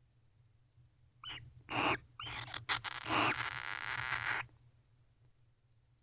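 Adult barn owls calling: two short harsh calls about a second in, then a longer harsh, hissing call lasting about two seconds that stops abruptly.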